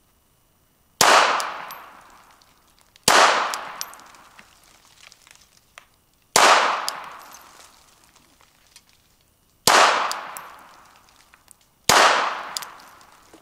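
Five single shots from a Glock 42 pistol in .380 ACP, fired slowly two to three seconds apart. Each sharp report fades out over a second or so.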